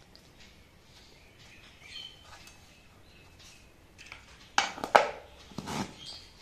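Soft tearing of bread into a steel mixer jar, then a few sharp metallic knocks about two-thirds of the way in as the jar is handled and its lid is fitted on.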